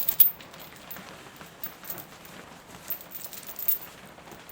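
Rain pattering steadily, with irregular sharp clicks and taps close by, a cluster of them near the start and another about three seconds in.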